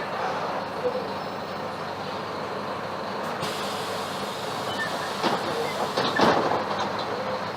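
Mercedes-Benz OF-1721 BlueTec 5 city bus on the move: steady engine and road noise, with a few short knocks and rattles from the body near the end.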